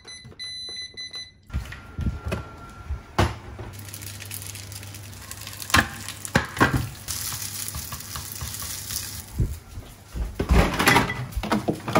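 Electronic beeps from an induction cooktop as its heat button is pressed, then rice sizzling as it fries in a nonstick frying pan, with spatula knocks and scrapes against the pan. A burst of clattering comes near the end.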